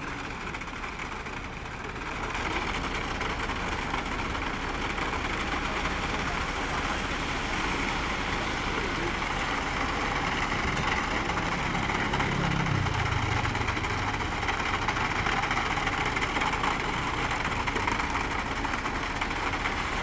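Concrete mixer truck's engine running as its drum turns in reverse to discharge concrete down the chute. The steady mechanical din gets louder about two seconds in.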